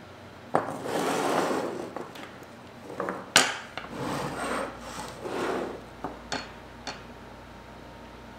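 Objects slid and set down on a wooden workbench: charcoal briquettes and a small metal grill scraping across the wood in two stretches, with a few sharp knocks as things are put down, the loudest about three and a half seconds in.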